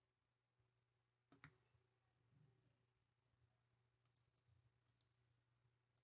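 Near silence: faint room tone with one soft click about a second and a half in and a few fainter clicks later, from working a computer mouse and keyboard.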